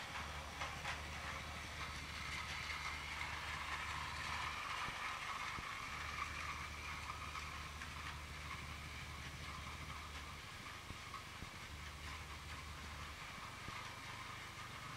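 Battery-powered Plarail toy trains running on plastic track: a steady whine from the small motor and gears, with light clicking of the wheels over the track joints.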